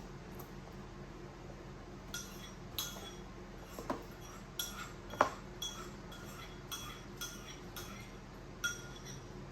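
A spoon clinking against a bowl, about ten light taps over some seven seconds, each leaving a short ringing note, one sharper strike about halfway through.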